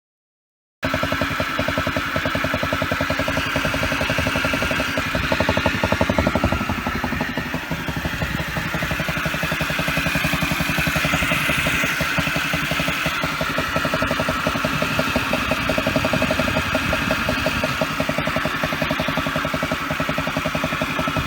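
Honda Zoomer scooter's single-cylinder four-stroke engine idling steadily, coming in abruptly about a second in, with the abnormal noise that the owner suspected came from a failing crankshaft bearing.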